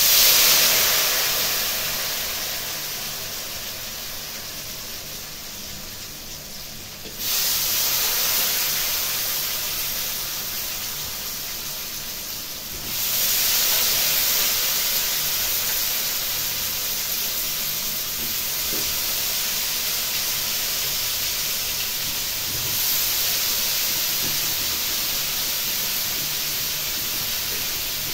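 Pre-boiled giant taro cubes frying in hot oil in an iron kadai, sizzling loudly. The sizzle flares up sharply as they go in, then again about 7, 13 and 23 seconds in as more cubes are added, easing off a little between.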